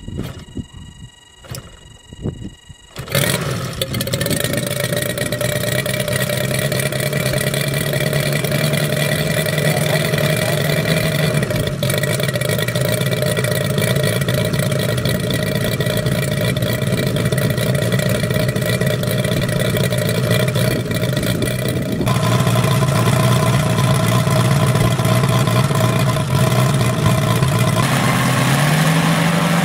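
Scale radial engine on a large RC biplane starting: a few sharp pops, then about three seconds in it catches and runs steadily and loudly. The note shifts around twenty-two seconds, and near the end it rises as the engine is revved up.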